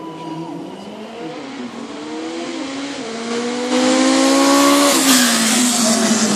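Two racing motorcycles, one a Suzuki Katana, accelerating flat out in a drag sprint. Their engine notes climb in pitch and grow louder, then fall in pitch about five seconds in.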